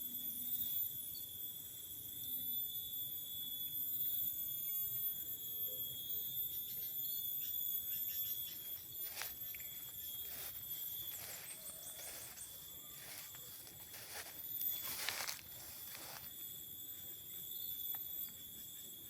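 A steady, high-pitched chorus of insects in tropical forest, made of several shrill tones held without a break. Irregular footsteps and rustles of leaves and undergrowth sound over it, with a louder scuff about fifteen seconds in.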